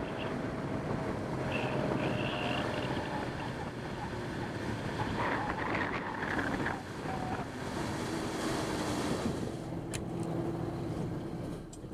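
Small fishing boat underway: a steady motor hum under water washing along the hull, with wind on the microphone.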